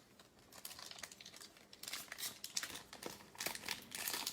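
Trading card pack wrapper being handled and torn open, a dense run of irregular crinkles and crackles that starts about half a second in.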